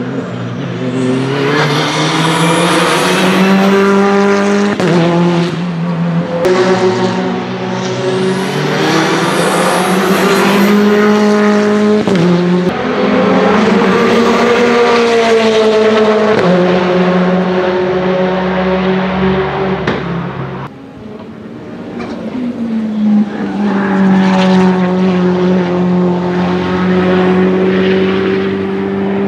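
Renault Mégane TCR race car's 1.8-litre turbocharged inline-four accelerating hard, its note climbing through each gear and dropping sharply at the quick sequential upshifts. This happens several times, with a brief dip about two-thirds through before another car pulls away at high revs.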